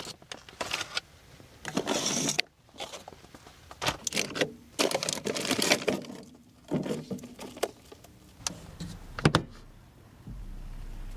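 Irregular clatter, knocks and rustling of objects being handled and set down in a small enclosed space, with one sharper knock near the end.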